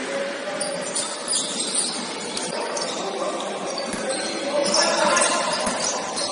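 Live game sound on an indoor basketball court: voices of players and spectators echoing in the hall, with short high squeaks and knocks from play on the court.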